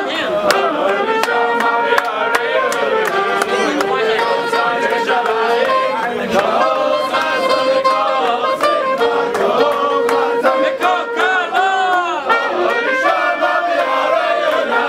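Lively trumpet melody over a crowd of men singing together, with a steady beat of sharp strokes.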